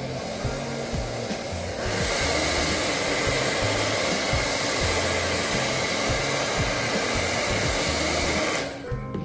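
Handheld hot-air blower running steadily on a phone's metal frame, a continuous rushing of air that grows louder about two seconds in and cuts off shortly before the end.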